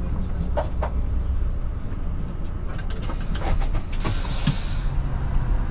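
Setra 516 coach's diesel engine running low and steady, heard from inside the cab, with scattered clicks and rattles. A burst of hiss comes about four seconds in.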